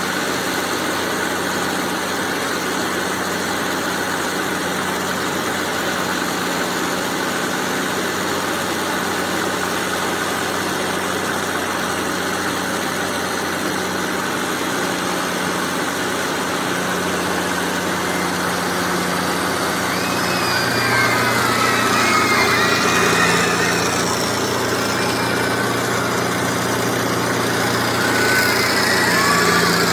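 Carnival ride machinery running with a steady low hum. About two-thirds of the way through, and again near the end, high wavering sounds that glide up and down come in over it.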